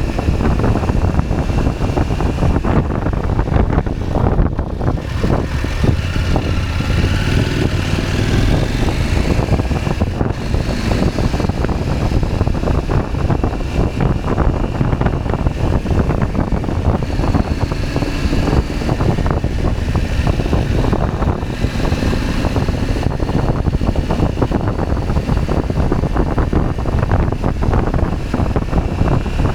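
KTM 790 Adventure's parallel-twin engine running while the motorcycle is ridden, with wind rushing over the microphone. The sound stays steadily loud throughout.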